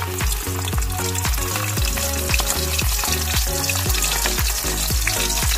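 Dried salted fish (tuyo) sizzling in hot oil in a wok over a wood fire, under background music with a steady beat.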